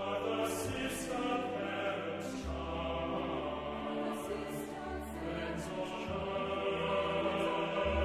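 A choir singing a slow sacred piece with held notes over sustained low bass notes in the accompaniment.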